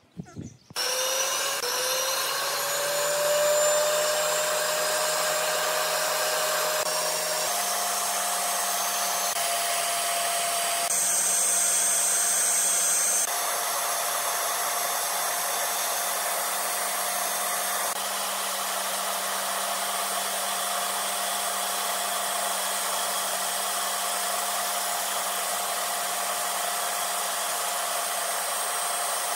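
Band saw starting about a second in, its motor whine rising in pitch as it comes up to speed, then running steadily while the blade cuts a curve through a wooden board.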